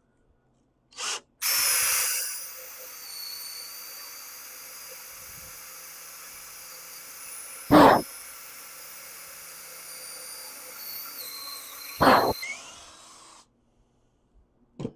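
Cordless drill boring a hole into a wooden 4x4 block with a Forstner bit. The motor whines steadily for about twelve seconds, loudest as the bit first bites, with two loud brief bursts partway through, and stops a second or so before the end.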